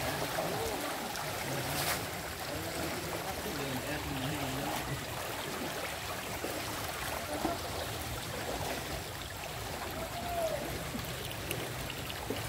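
River water flowing with a steady rushing, with faint voices in the background and a short burst of noise about two seconds in.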